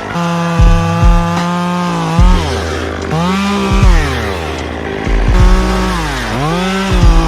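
Two-stroke chainsaw running at high revs. Its pitch drops and climbs back up twice, and several low thumps are heard along the way.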